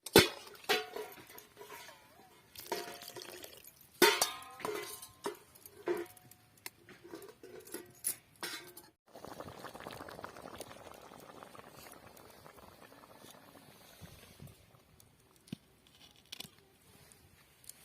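Cooking vessels and utensils clinking and knocking together, several of the strikes ringing briefly. Partway through this stops suddenly, and a soft steady rushing, like liquid pouring or a pot simmering, follows, with a few faint clicks.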